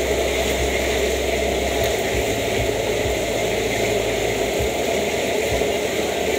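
Steady roar of a gas wok burner running high, with oil sizzling and bubbling in the wok as a batch deep-fries.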